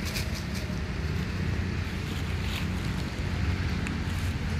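Steady low wind rumble on the microphone, with a few brief crackles of dry leaves as two macaques wrestle on the leaf litter.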